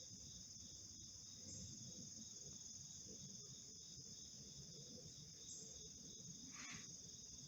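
Faint steady high-pitched chorus of insects, with a brief faint call near the end.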